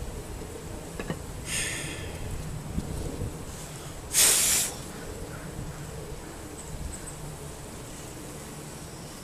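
Carniolan honeybees buzzing steadily around an opened top-bar hive, with one short, loud hiss about four seconds in and a fainter brief hiss a couple of seconds before it.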